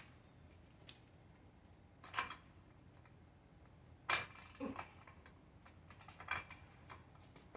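Light metallic clicks and clinks of hand tools and parts on a V8 engine being taken apart, scattered at irregular intervals with a small cluster near the middle.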